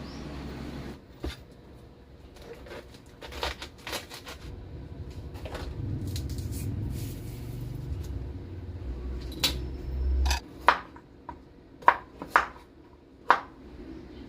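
Kitchen clatter: dishes, pots and utensils being handled, with scattered clinks and knocks, the sharpest four coming in the last few seconds over a low rumble that stops suddenly about ten seconds in.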